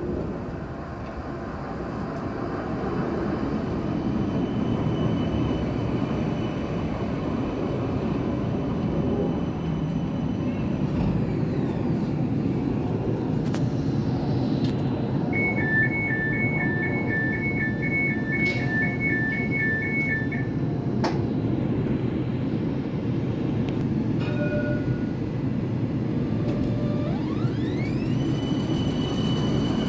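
Parramatta Light Rail CAF Urbos 100 tram pulling into the stop and coming to a halt, its motor whine falling as it slows. About halfway through, a rapid alternating two-tone beeping runs for about five seconds. Near the end a rising whine starts as the tram begins to pull away.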